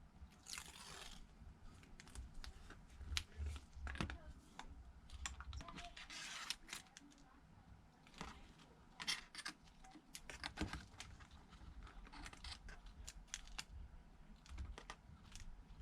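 Faint clicking and scratching of small hand tools and fingers working on a replacement tablet screen, with a couple of brief scratchy, tearing sounds of adhesive tape backing being peeled off.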